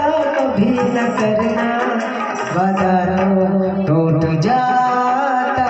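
A Hindi song being sung with instrumental accompaniment: a voice holding long, wavering notes of the melody over continuous music.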